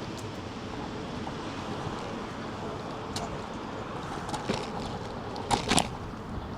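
Steady rolling and wind noise from an electric scooter ride on city streets, with a few sharp clicks and two louder knocks in quick succession near the end.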